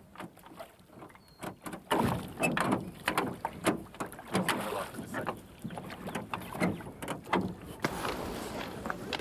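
A rowboat being rowed: irregular knocks and splashes of the oars, coming thicker from about two seconds in. Near the end it gives way to a steadier noise.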